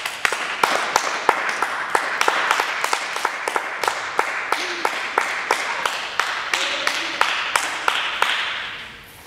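Rapid, irregular sharp clicks and snaps over a steady hiss, fading out near the end.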